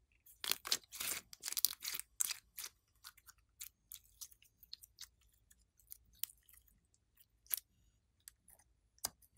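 Sticky green slime being squeezed, stretched and folded by hand, making a dense run of wet clicks and pops for the first two or three seconds that then thin out to scattered pops.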